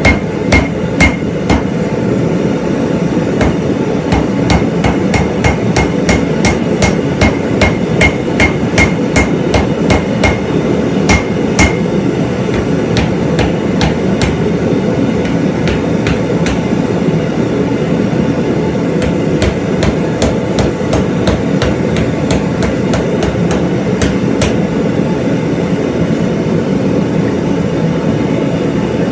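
Hammer blows on hot steel against an anvil while forging a hot cut hardy: a fast run of ringing strikes, about two to three a second, for roughly the first twelve seconds, then lighter, more scattered blows. A steady rushing noise runs underneath.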